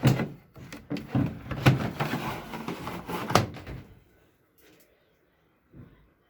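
A run of sharp knocks and clattering bumps over the first four seconds, followed by a couple of faint ticks.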